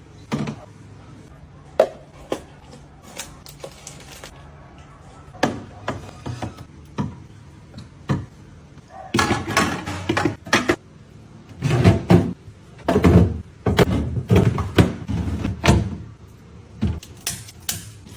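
Food containers and packaging being handled and set down while restocking a fridge: scattered clicks and knocks, turning into denser, louder clattering and rustling from about nine seconds in.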